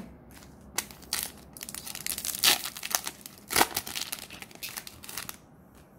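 Plastic trading-card booster pack wrapper being torn open and crinkled by hand: a run of crackling rustles starting about a second in, with the loudest crackles around the middle.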